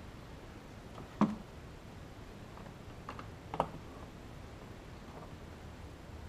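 Hard plastic clicks and knocks as a plastic push-pin fastener is seated in a body-panel hole of a Honda Pioneer 1000 side-by-side and pressed flush. One sharp click comes about a second in, and two lighter ones follow around three and three and a half seconds.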